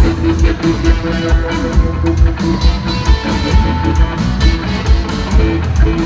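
Rock band playing live: electric guitar over drums, with a steady kick-drum and bass beat.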